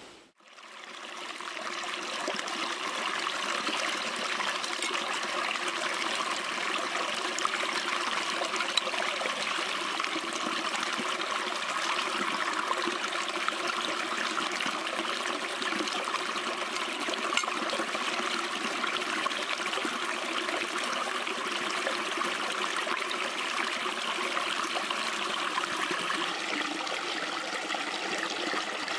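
Shallow stream running steadily over stones, fading in over the first couple of seconds and then holding even.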